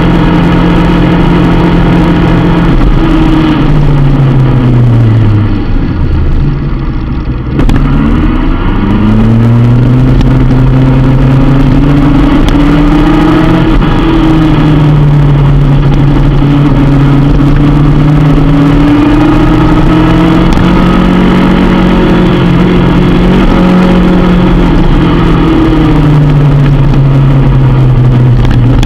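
Sport motorcycle engine heard onboard from the bike itself, running hard on a race track. Its pitch falls for a few seconds as the bike slows into a corner, the sound dips quieter around six to seven seconds in, then the engine pulls back up and holds high with small rises and dips through the following bends.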